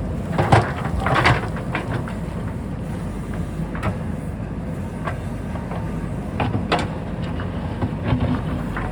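JCB backhoe loader's diesel engine running steadily under load, with scattered clanks and knocks as it digs, the loudest cluster about a second in.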